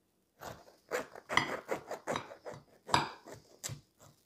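Long kitchen knife sawing down through the crisp, sesame-topped crust of a freshly baked yeast bread loaf, an irregular series of quick strokes.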